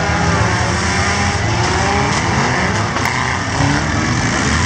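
Many compact four-cylinder demolition derby cars running at once, their engines revving and falling back in a loud, steady tangle of pitches.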